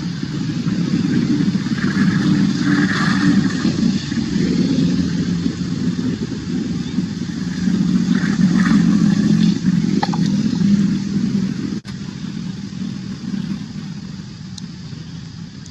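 A motor vehicle engine running steadily, getting quieter in the last few seconds.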